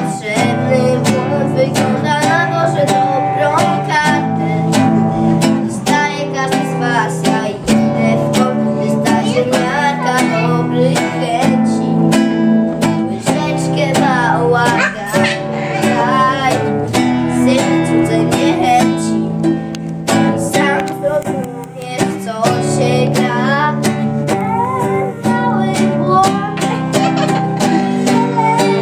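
Acoustic guitar being strummed, with singing over it.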